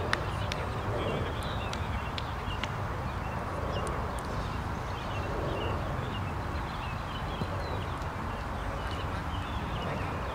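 Steady open-air background noise with a low rumble, faint high chirping scattered throughout and a few sharp clicks in the first few seconds.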